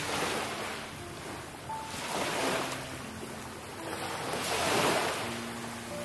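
Sea waves washing up on a beach, swelling and falling back about every two and a half seconds.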